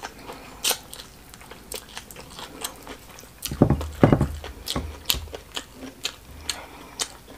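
Close-miked chewing of smoked catfish and rice: a scatter of short wet mouth clicks and smacks, with a louder stretch a little past halfway.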